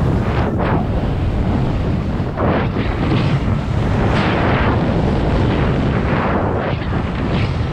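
Wind buffeting an action camera's microphone as a skier descends at speed, with repeated hissing scrapes of the skis turning on firm, tracked snow about once a second.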